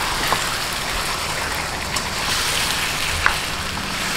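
Chicken pieces sizzling steadily in hot oil in a nonstick wok as they are stirred with a plastic spatula, with a few light clicks of the spatula against the pan.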